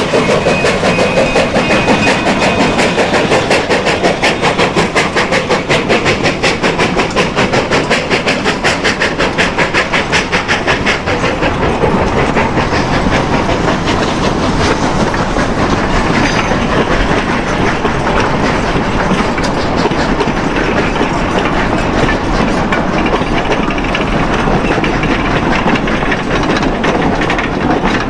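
Narrow-gauge steam locomotive, a Durango & Silverton K-36 class 2-8-2, rolling close past with a rapid, even beat; about eleven seconds in the beat gives way to a steadier rumble and wheel clatter as the wooden passenger coaches roll by on the rails.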